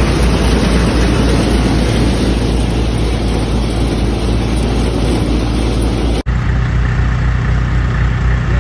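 Tractor-driven groundnut thresher running, a loud dense mechanical clatter over the tractor engine's steady low hum. About six seconds in the sound cuts abruptly to a steadier engine drone with less rattle.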